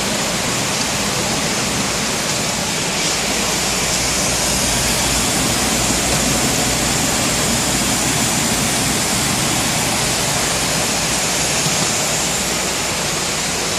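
Steady rushing noise inside an aircraft cabin in flight: the even roar of engines and airflow.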